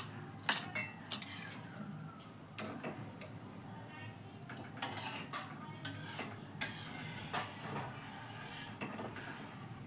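Long steel ladle stirring in a large metal kadai of thick food, with scattered clinks and scrapes of metal on metal.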